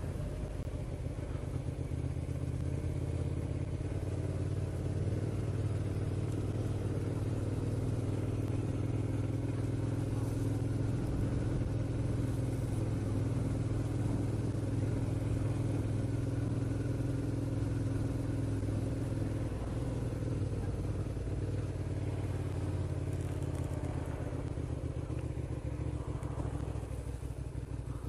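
Motorcycle engine running steadily at low town speed, heard from the rider's camera, easing off over the last few seconds as the bike slows in traffic.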